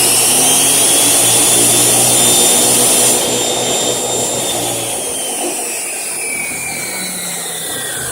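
Old Makita abrasive chop saw running at full speed with a loud, steady whine, then switched off about three seconds in; the whine falls steadily in pitch as the motor and abrasive wheel coast down.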